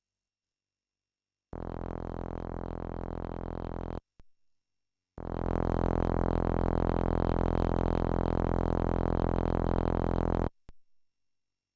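Synthesized lightsaber-style hum: a steady buzzing tone, rich in overtones, that holds one pitch. It sounds twice: first for about two and a half seconds, then louder and brighter for about five seconds, each time cut off abruptly with a click.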